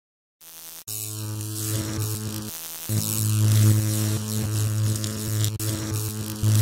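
Electrical hum and buzz sound effect with crackling static, like a buzzing neon sign powering up. It starts about half a second in, cuts out briefly around two and a half seconds in, then comes back.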